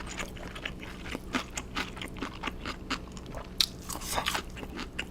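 Close-miked chewing of crispy fried chicken, with a run of many short, irregular crunches.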